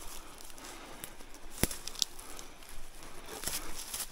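Footsteps crunching and crackling through dry leaf litter and undergrowth while scrambling down a steep creek bank, with an irregular scatter of small cracks and one sharp crack about one and a half seconds in.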